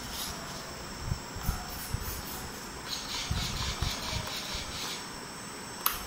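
Small electric motor and propeller of a homemade toy RC aeroplane running with a thin, steady high whine and a faint pulsing flutter, over scattered low bumps. A sharp click near the end.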